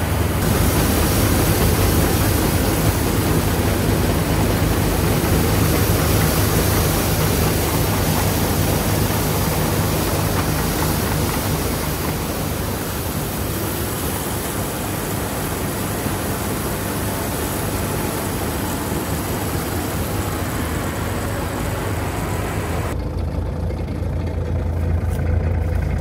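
Old Allis-Chalmers combine harvester running steadily while harvesting: the engine's low hum under a dense rushing noise from the working machine. About 23 seconds in the high rushing cuts off suddenly, leaving the engine's low note.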